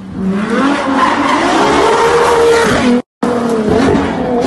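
Supercar engine revving hard under acceleration, its pitch climbing and then holding high. It cuts off abruptly about three seconds in, and a car engine is running again after a brief gap.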